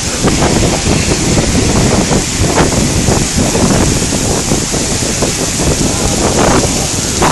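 Heavy rain pouring onto a paved street and square, a steady hiss, with gusts of wind buffeting the microphone.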